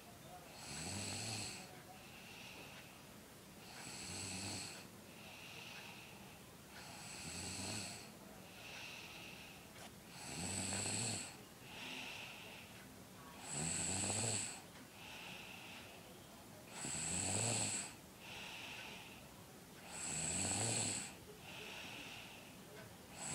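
Snoring in a steady rhythm: a loud snore about every three seconds, with a fainter, higher whistling breath between each.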